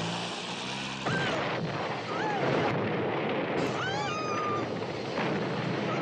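A car engine hums briefly, then about a second in a loud rushing roar of fire takes over. Shrill screeches that rise and fall in pitch cut through it several times, most of them between about one and four and a half seconds in.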